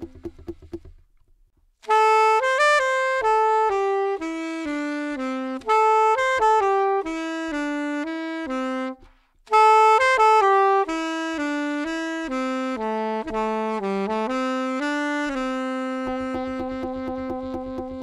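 Saxophone playing a smooth, connected melody in two phrases that mostly step downward, with a short break between them. The second phrase ends on a long held low note. Before the first phrase, an earlier held note fades out about a second in, followed by a brief pause.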